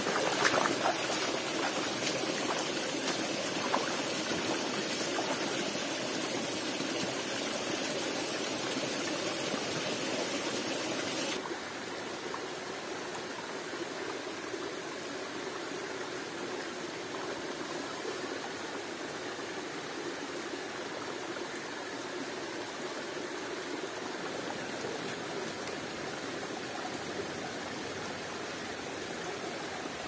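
Steady rushing and splashing of a forest waterfall, with a few light clicks in the first seconds. About eleven seconds in, the water sound abruptly becomes quieter and duller.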